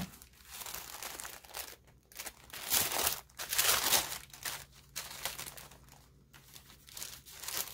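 Tissue paper crinkling and rustling in irregular bursts as it is unfolded from around a package, loudest in the middle.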